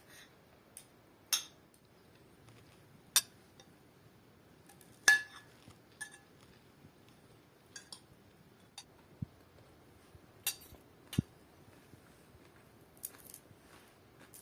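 Dishes and cutlery clinking in short, scattered knocks, the loudest about five seconds in with a brief ring.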